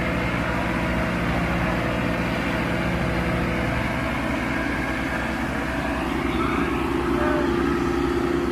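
Mahindra Arjun and Sonalika tractor diesel engines running together under throttle, with the engine note rising and strengthening about four seconds in.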